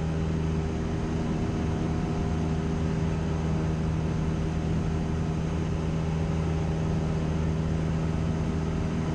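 Cessna light aircraft's piston engine and propeller heard from inside the cockpit, a steady even drone in level cruise flight.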